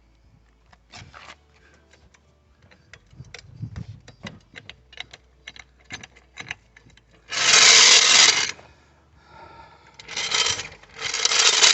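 Car being let down on a jack: a run of light, irregular metallic clicks, then two loud bursts of rasping, scraping noise about seven and ten seconds in.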